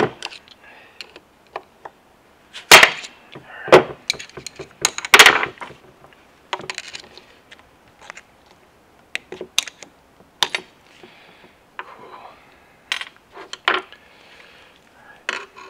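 Rubber mallet knocking on the handles of two screwdrivers wedged behind a C-clip on a T50 transmission's output shaft: four sharp blows in the first five seconds or so. Then lighter metal clicks and clinks as the clip is pried off with a screwdriver and tools are set down on the bench.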